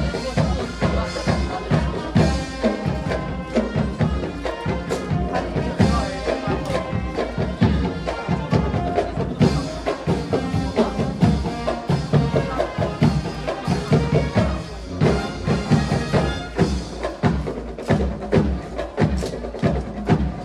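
Marching band playing: drums beating steadily under a played melody.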